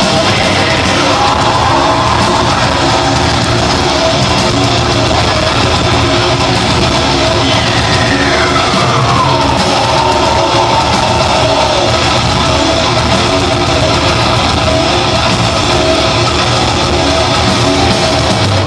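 Heavy metal band playing live, with loud, steady distorted guitars, bass and drums. A note slides down in pitch about eight seconds in.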